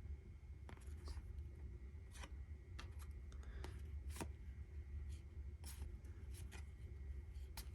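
Baseball trading cards being flipped and slid off a stack one at a time: faint, scattered soft flicks and rustles, about a dozen, over a low steady hum.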